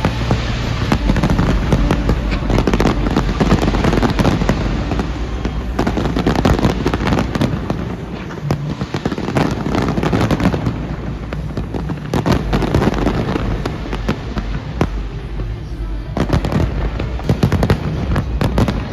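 Fireworks display: a dense, continuous barrage of bangs and crackles, easing briefly about eight seconds in and building to a thick flurry near the end.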